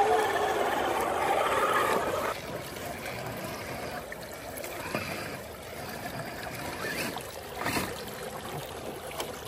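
A 1/10-scale RC crawler's electric motor whining and falling in pitch as the truck churns through muddy water. After about two seconds this gives way to quieter trickling creek water, with a single knock near the end.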